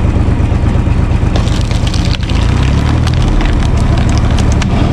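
Diesel engine of a U445 tractor running steadily, driving a cone (screw) log splitter. Wood cracks and splinters repeatedly from about a second and a half in as the cone bores into a log and splits it.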